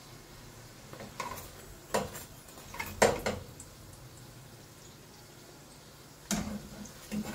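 Metal spatula knocking and scraping against a frying pan while fried rolls are turned and lifted. There are several short clatters, the loudest about three seconds in, and more near the end.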